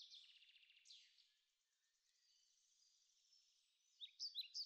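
Faint songbird calls: a rapid trill in the first second, then short chirps near the end, with almost nothing in between.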